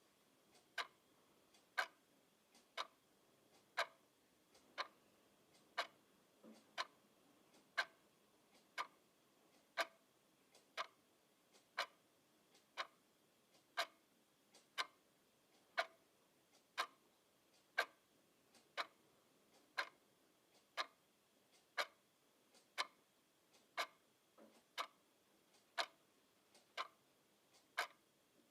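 Wall clock ticking steadily, one sharp tick about every second.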